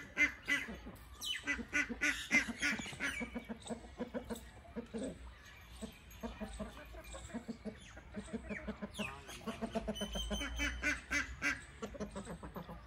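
Farmyard poultry calling: many short calls one after another.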